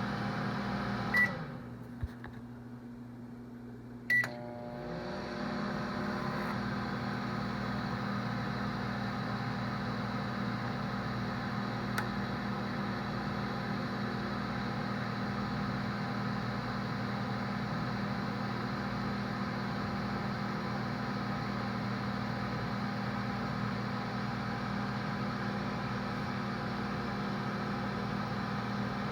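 Microwave oven running with a steady hum. About a second in it gives a short beep and the hum drops away to a quieter drone, with a click. About three seconds later a second beep sounds and the full hum starts up again and runs on steadily.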